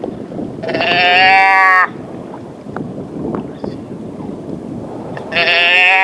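Two loud, drawn-out deer bleats, about four and a half seconds apart, each a steady nasal tone lasting a little over a second.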